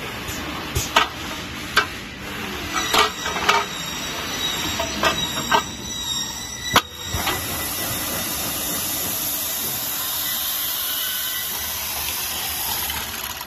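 Aluminium curtain-wall multi-head drilling machine at work: a series of sharp metallic knocks and clacks as the aluminium profile is loaded and clamped, the loudest just before the middle, then a steady hiss as the pneumatic drill heads run.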